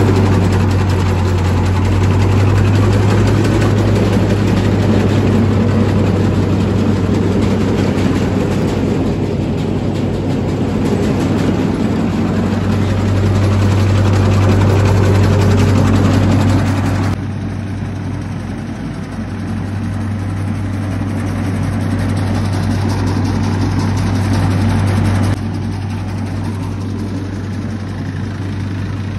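Massey Ferguson tractor engine running steadily at a constant speed, driving a KS Group KSA 756 DB straw reaper whose pulleys and rotors turn with it. The overall level drops abruptly twice, about 17 and 25 seconds in.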